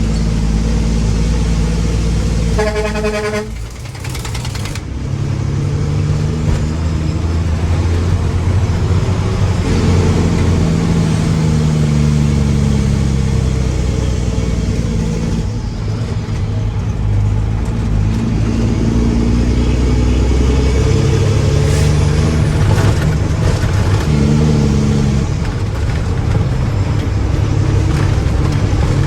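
Mack truck's diesel engine running and revving up and down several times. A short horn toot sounds about three seconds in.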